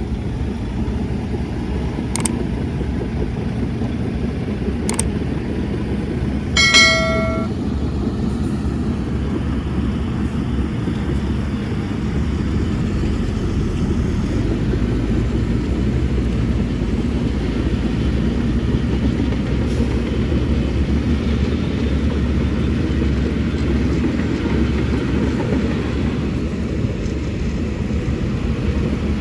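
Heavy construction machinery's diesel engine running steadily, with a short horn blast about seven seconds in.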